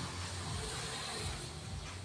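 Steady low hum with faint hiss, no call: the background noise of the recording in the pause between bulbul calls.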